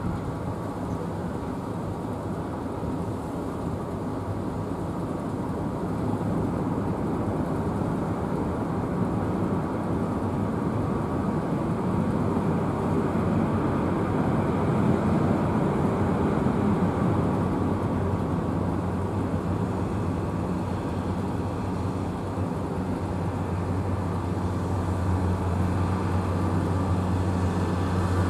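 Jet engine noise from a Boeing 777-300 rolling out on the runway after touchdown: a steady rushing rumble that grows a little louder, with a low steady hum coming through more clearly near the end.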